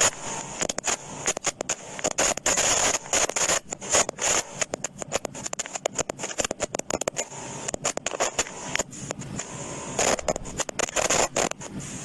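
Microphone distortion: harsh crackling and scratching noise that cuts in and out in irregular bursts, with a steady high hiss underneath.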